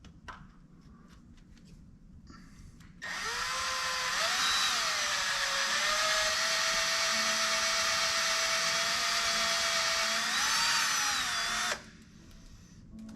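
A power drill boring into the crankshaft hub of a BMW F80 M3 CS. It starts about three seconds in and runs steadily for about nine seconds, its motor pitch dipping and rising a few times as the bit bites, then stops abruptly.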